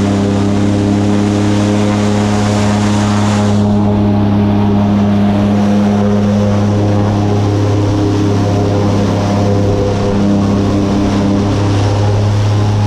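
Airboat's engine and big air propeller running steadily at speed, a loud even drone; the rushing hiss over it thins out about three and a half seconds in.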